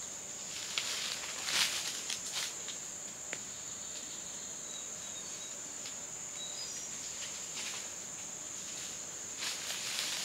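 Steady high-pitched drone of forest insects, with footsteps crunching through dry leaf litter in the first few seconds and again near the end.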